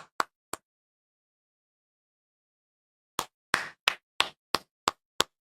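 A run of sharp knocks, about three a second, starting a few seconds in after two faint clicks and a stretch of dead silence.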